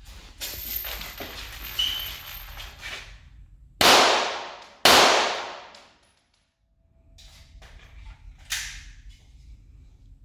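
Two 9 mm pistol shots from a Glock 34, about a second apart, each trailing off in a long echo, with handling noise before them and a fainter sharp clack near the end.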